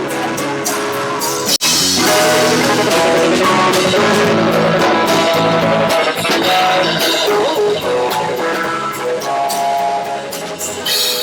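Rock band playing live: guitars over a drum kit, with a very brief break in the sound about a second and a half in.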